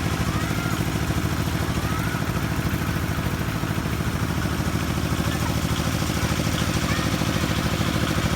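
A small engine running steadily at an even speed, with a fast, regular beat.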